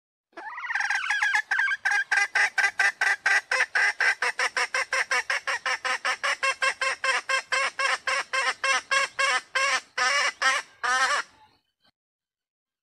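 Red junglefowl hen calling: a longer opening note, then a long, rapid run of short, pitched clucks at about four a second, which stops shortly before the end.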